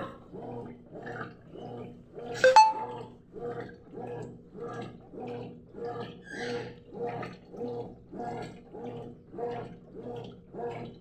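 Consul 12 kg washing machine agitating a load of clothes in water: a rhythmic swish-and-slosh about twice a second, with a motor hum under each stroke. One louder, sharper sound cuts in about two and a half seconds in.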